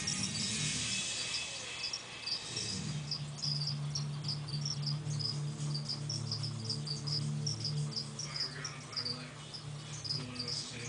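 Crickets chirping: a steady run of short, high chirps, about three a second. A low hum sits underneath through the middle.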